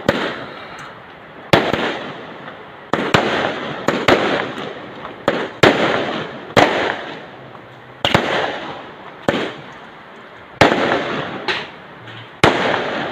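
Fireworks going off: about a dozen sharp bangs at uneven intervals of roughly a second, each trailing off in a hissing, crackling tail.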